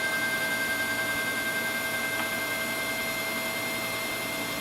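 Pillarhouse Jade selective solder machine running: a steady whir with a few high held tones, while its positioning system moves very quietly.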